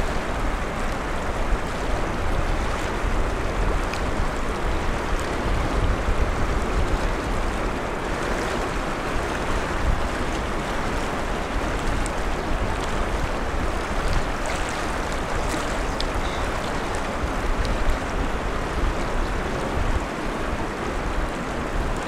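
Steady outdoor rush of water and wind, with wind rumbling on the microphone.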